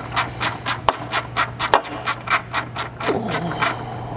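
A hand ratchet clicking in quick, even strokes, about four a second, as it backs out a 10 mm bolt; the strokes get denser a little past three seconds. A steady low hum sits underneath.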